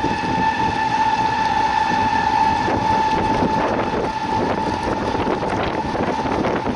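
Boat's outboard motor running steadily at cruising speed, a constant high whine over the rush of water and wind on the microphone.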